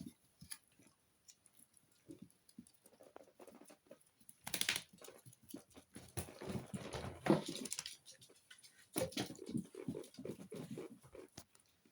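Italian Greyhound puppy moving about and mouthing things at close range: scattered soft taps and rustles, with three louder spells of scuffling and rustling.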